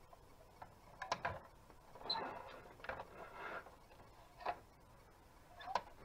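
Plastic toy garbage truck being worked by hand: its rear tailgate and hopper clicking and clattering, with a short stretch of rattling a couple of seconds in and single clicks near the end.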